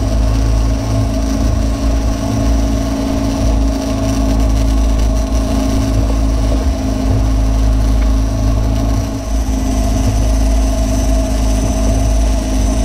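Boat's outboard motor running at a steady speed.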